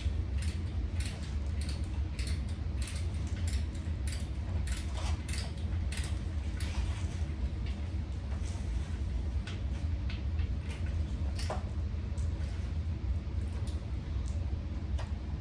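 Irregular small clicks, taps and knocks of table parts and hardware being handled and fitted during furniture assembly, over a steady low hum.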